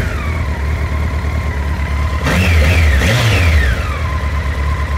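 Honda CBR1100XX Blackbird's inline-four engine idling. The revs are dropping back from a blip at the start, then it is blipped twice in quick succession a little over two seconds in and settles back to idle about four seconds in. The owner is asking about an unexplained noise from the bike's left side.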